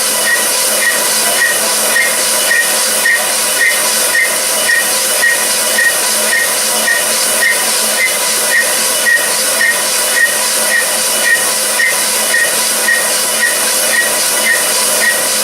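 A machine running steadily with a loud hiss and a light, regular tick about twice a second.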